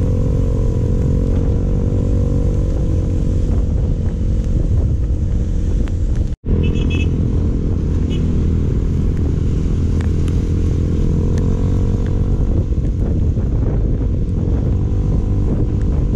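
Motorcycle engine running at riding speed, with a steady drone whose pitch rises and falls slightly as the throttle changes, over rushing air noise. The sound cuts out for an instant about six seconds in.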